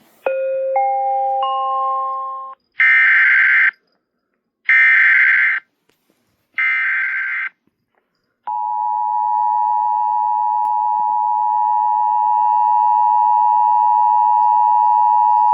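Emergency Alert System warning sequence. A rising three-note chime opens it, then three short bursts of buzzy data tones (the SAME header), then the long, steady two-tone attention signal that announces a severe thunderstorm warning.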